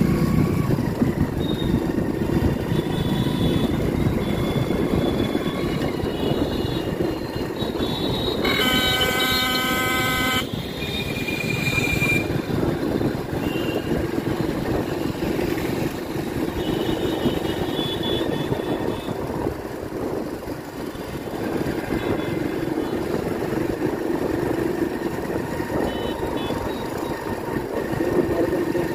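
Motorcycle engine running steadily under way, with road noise. A horn honks for about two seconds around nine seconds in, and a short, higher toot follows a little later.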